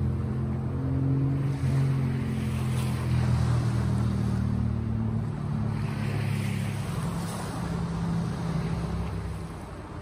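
Sea waves washing onto the shore, rising to a wash about three seconds in and again around six to seven seconds. Under them runs a low, steady engine hum that fades away near the end.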